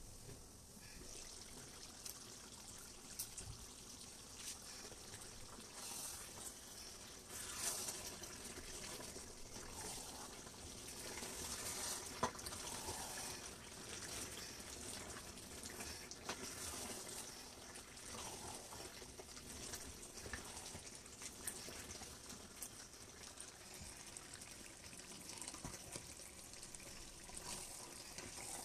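Pot of palm oil stew bubbling and sizzling in a steady hiss, with scattered scrapes and knocks of a spatula stirring it, the sharpest knock about twelve seconds in.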